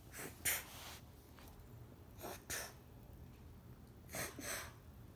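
A person breathing heavily close to the microphone: three in-and-out breaths, about two seconds apart.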